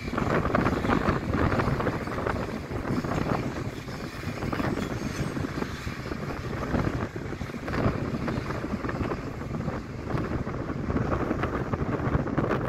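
Passenger train coaches rolling past: a steady rumble with dense, irregular clatter of wheels on the rails. Wind buffets the microphone throughout.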